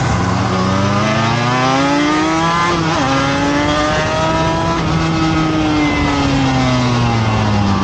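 Race motorcycle engine heard from onboard, pulling hard with rising revs, a quick drop in pitch about three seconds in as it shifts up, climbing again, then revs falling off slowly as the rider rolls off for a corner. Steady wind rush underneath.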